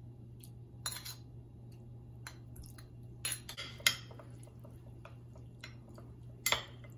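Metal spoon clinking and scraping against a stone molcajete and a glass dish while stirring chopped raw shrimp in lime juice: a handful of separate clinks, the loudest about four seconds in, over a faint steady low hum.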